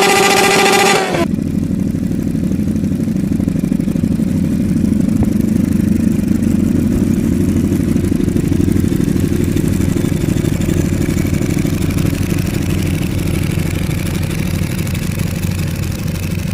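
A loud, high-pitched engine note cuts off suddenly about a second in. It is followed by a large-displacement sport motorcycle engine idling with a steady, low rumble.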